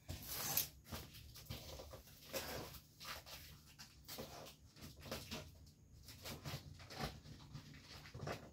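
Cutter slitting and scraping at the packing tape on a cardboard carton: a run of short, irregular scratching strokes on the cardboard.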